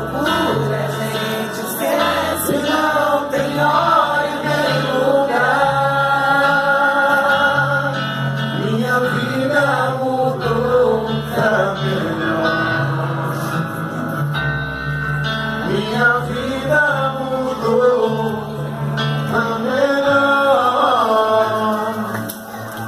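A man singing a romantic pagode love song over instrumental backing, holding long notes with a wavering vibrato.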